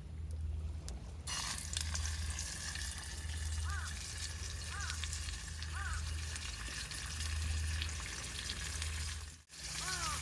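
Food sizzling on a hot pan; the sizzle starts suddenly about a second in, as the food goes onto the hot surface.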